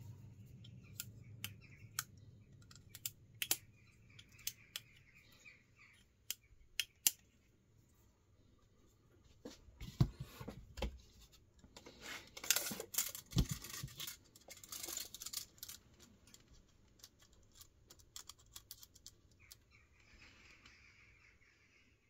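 Small Kershaw 2032 Esteem slipjoint pocket knife being handled: sharp clicks of the blade snapping on its double detent as it is opened and closed, with a stretch of scraping and rubbing from handling in the middle.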